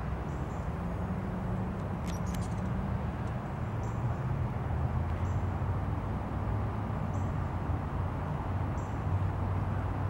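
Hummingbird giving short, high chip notes, faint and spaced a second or two apart, over a steady low rumble. A couple of sharp clicks about two seconds in.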